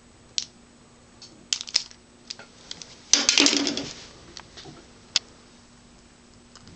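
Handling noise: scattered sharp clicks and light taps, with a louder rustling clatter lasting about a second around three seconds in.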